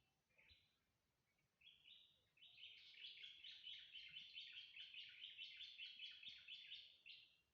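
A bird singing: a short call near the start, then from about two seconds in a long, fast run of repeated chirps that stops abruptly just before the end.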